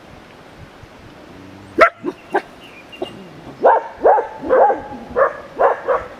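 Dog barking: a few sharp yelps about two seconds in, then a steady run of barks, about two a second, from just past halfway.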